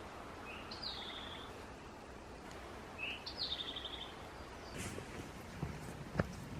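A songbird sings the same short phrase twice, about two and a half seconds apart: a low note, a quick rising note and a falling trill. Under it is a faint steady hiss of forest ambience, with a few soft footfalls near the end.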